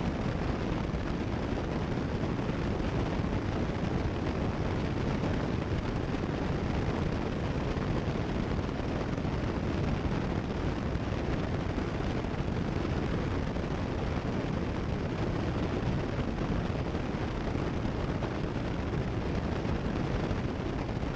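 Cessna 172 Skyhawk's piston engine and propeller droning steadily in flight, heard as an even cabin hiss through the headset intercom audio.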